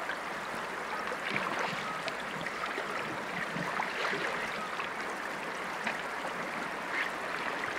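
Steady rush of river water flowing over stones, with faint small ticks and splashes scattered through it.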